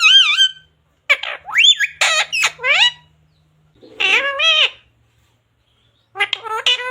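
Talking parrot chattering in short, high-pitched, warbling phrases, about four bursts with brief pauses between them.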